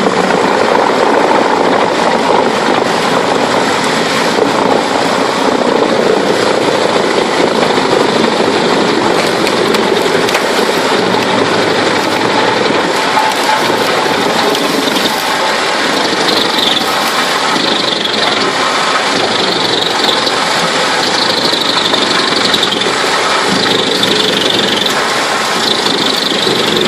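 Large wood chipper powered by a 360 hp diesel engine, running with a loud, dense, continuous noise that shifts in texture, with some harsher high-pitched patches in the second half.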